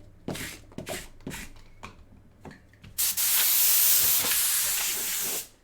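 A few light handling clicks and rustles, then a loud steady hiss for about two and a half seconds that cuts off suddenly.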